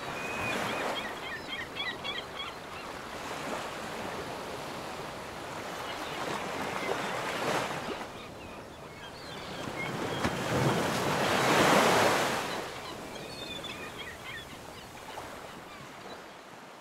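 Harbour water washing at the shore, with wind gusting on the microphone. The sound swells to its loudest about eleven to twelve seconds in, then eases off.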